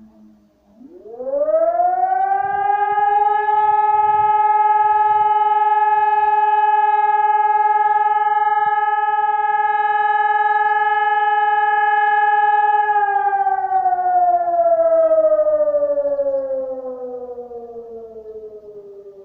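ECI600 siren sounding a fire-alarm tone, the call-out signal for the fire brigade. It climbs in pitch over about a second, holds one steady pitch for about twelve seconds, then slides slowly down as it winds off.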